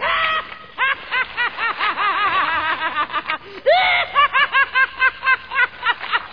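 A high-pitched cackling laugh: rapid "ha-ha-ha" laughs, about five a second, broken by one longer drawn-out note a little before the four-second mark. It starts abruptly.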